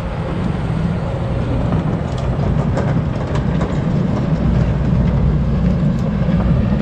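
Heavy construction machinery running nearby, a loud steady low diesel rumble with a few faint knocks and clicks over it.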